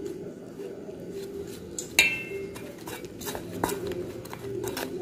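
Metal spoon stirring besan (gram-flour) batter in a stainless steel bowl, scraping and clinking against the bowl. One sharp, ringing clink comes about two seconds in, with a few lighter clinks later.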